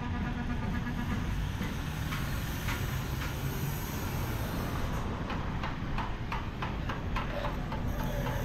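Roadside street traffic: vehicle engines running nearby over a steady low rumble, with a run of light, irregular clicks or rattles through the middle.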